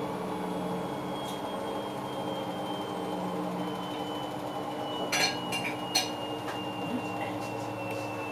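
Hoover H-Wash 500 washing machine running, with a steady motor hum and a thin high whine that slowly falls in pitch. A few sharp clicks come a little past the middle.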